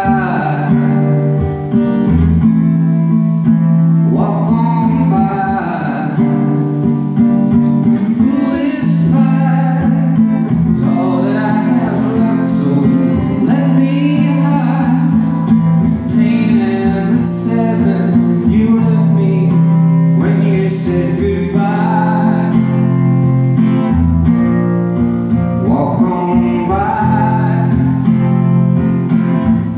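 A man singing live to his own strummed acoustic guitar: sung phrases with short gaps between them, over steady chords.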